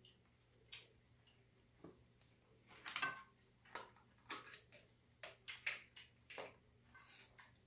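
Chopsticks clicking and tapping against food containers and dishes while eating: a quick run of sharp clicks from about three seconds in, the loudest near the start of the run, over quiet room tone.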